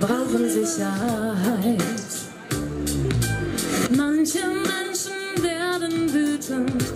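Two women singing a song together into handheld microphones, amplified through a stage PA.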